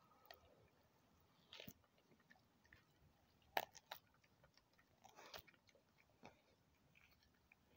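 A dog chewing and biting on a raw kangaroo spine: irregular sharp crunches of bone, the loudest about three and a half seconds in.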